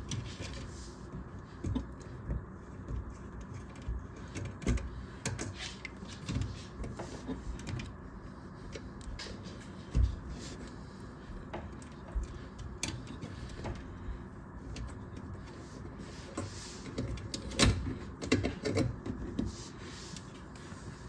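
Irregular small clicks, taps and rustling from hands disconnecting the wiring in a dishwasher's electrical junction box, with a sharp knock about three-quarters of the way through.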